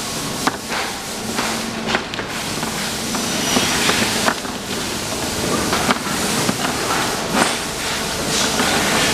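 Hard black plastic cabinet legs clacking and knocking together as they are picked from a pile and handled on a workbench, a sharp click every second or so over a steady hissing background noise.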